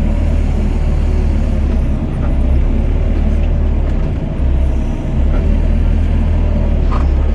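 Doosan DX55 mini excavator's diesel engine running steadily with a deep rumble while it works the bucket, the level dipping briefly twice.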